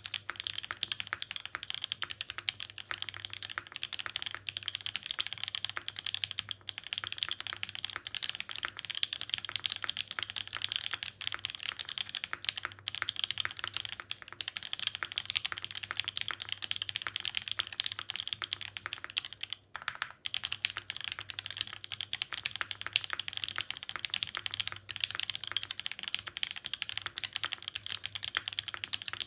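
Continuous fast typing on an Iron165 mechanical keyboard with a polycarbonate case, an undampened ABS plate, lubed OPBlack switches and GMK keycaps: a dense, steady stream of key clacks, with a brief pause about two-thirds of the way through.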